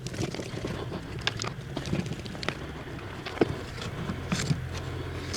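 Irregular light clicks and taps of a screwdriver and plastic parts as the window regulator's gearbox is unscrewed from its motor with a T20 Torx driver, over a low steady hum.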